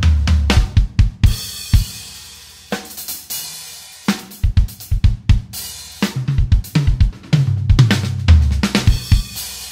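Yamaha Recording Custom birch drum kit played solo: kick, snare and hi-hat with fills rolling down the toms to the floor tom. Cymbal crashes ring out about a second in and several times through the middle, and another tom fill comes near the end.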